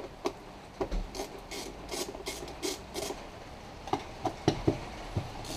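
Ratchet with a 10 mm socket unscrewing the nuts that hold the plastic top engine cover: a run of short raspy clicking strokes, about two or three a second, then a few knocks near the end.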